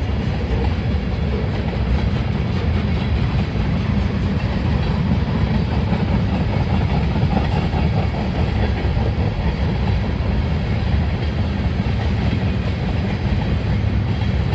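CSX manifest freight train's cars rolling past at track side: a steady, loud rolling noise of steel wheels on rail.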